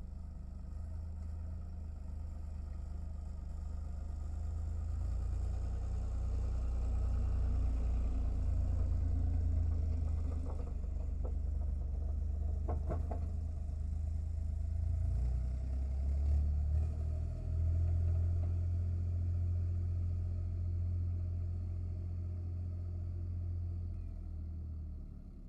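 Low engine rumble from a running motor, swelling and easing with a few shifts in pitch, with a few faint clicks near the middle.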